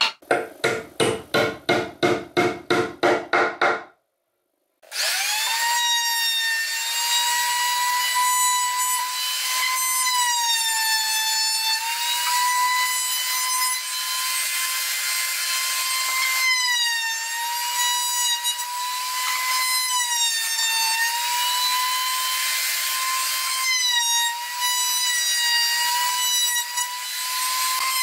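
A hammer strikes a steel nail set about three times a second for some four seconds, setting nails into a pine board. After a short break a handheld electric trim router runs with a steady high whine over a rough cutting noise, its pitch dipping briefly and recovering now and then as the bit cuts the wood.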